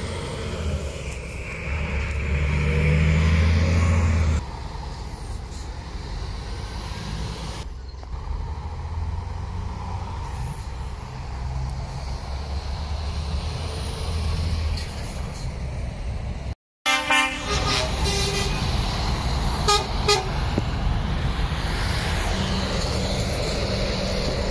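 Lorries driving past with their diesel engines running, loudest a few seconds in. About two-thirds of the way through, the sound cuts out for a moment, and then a truck horn toots twice.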